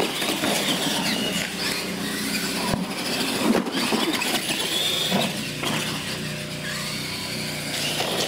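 Electric R/C monster trucks racing, their motors and gears whining in pitch as they speed up and slow down. A knock about three and a half seconds in as a truck goes over a ramp.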